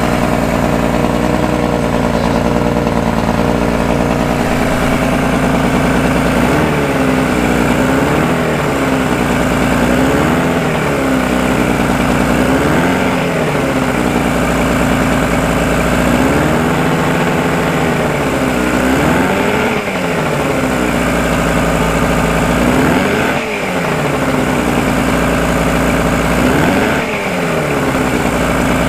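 Mercury 50 hp two-stroke outboard running on a test stand, steady for the first few seconds, then revved up and let back down again and again, every two to three seconds. It is the first test run of a used motor to see whether it runs.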